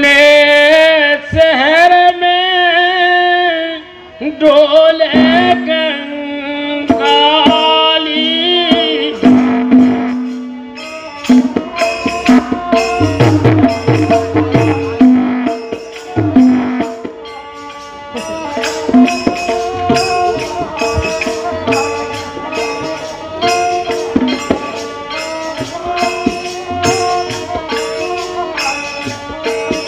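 Live Indian folk bhajan: a man sings long wavering phrases over a harmonium for about the first ten seconds. Then the harmonium carries on alone with tabla and hand percussion beating a fast, busy rhythm.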